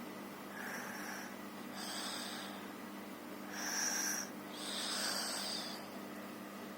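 A sleeping girl snoring, with a wheezy, hissy edge to each breath. There are about four noisy breaths, roughly one a second, the loudest near the middle.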